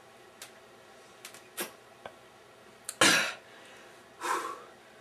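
A man coughing twice, a loud cough about three seconds in and a weaker one about a second later, after a few faint clicks.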